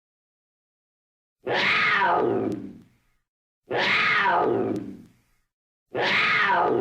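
An animal call from a recording, the same call played three times about two seconds apart, each rising and then falling in pitch.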